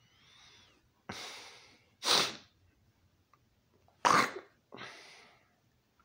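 A man making loud, exaggerated breath noises: a hissing breath about a second in, then a sharp, louder burst, and another sharp burst about four seconds in followed by a softer one.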